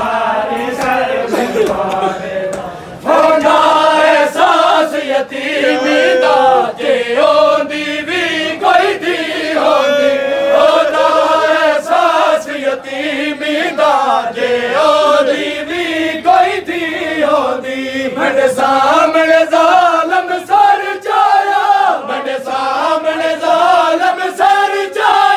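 Group of men chanting a Punjabi noha, a Shia lament, in unison, loud and steady, with sharp slaps of chest-beating (matam) through it. The chanting dips briefly and comes back in full about three seconds in.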